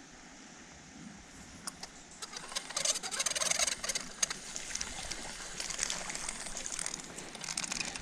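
Creek water running faintly, then from about two seconds in an irregular crackling rustle that continues to the end.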